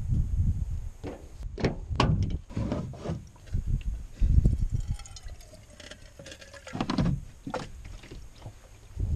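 Clunks and knocks of camp cooking gear being handled, and water running from a plastic jug's spigot into a small metal camp pot.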